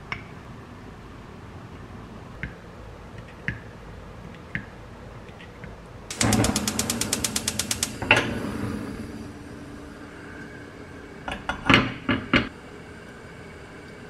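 Gas stove burner's electronic igniter clicking rapidly, about ten clicks a second for two seconds, then the burner catching with a short whoosh and a hiss of flame. Before it, a few light taps of a spoon on a glass jug; near the end, a quick run of sharp knocks.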